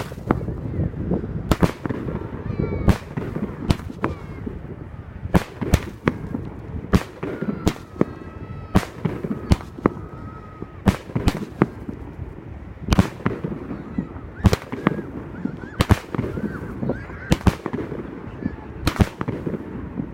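Pyrostar Electric Octopus 16-shot XL firework cake firing: a long run of sharp bangs of shots and aerial breaks, coming at irregular intervals of about half a second to two seconds.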